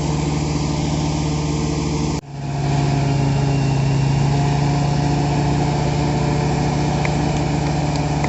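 Motorcycle engine running steadily at idle. It cuts out sharply for a moment about two seconds in and then carries on at a slightly different pitch.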